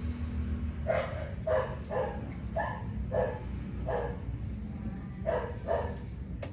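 A dog barking repeatedly, about eight short barks in uneven groups.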